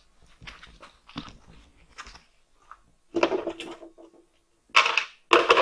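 A series of irregular scrapes and knocks, a few of them with a short creak, the loudest in two bunches in the second half.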